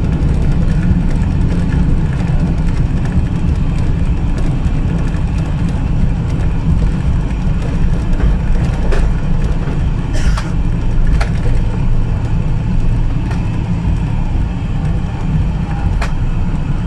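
Boeing 777-200ER cabin noise during the landing: a loud, steady low rumble, with a few sharp clicks and rattles partway through and near the end.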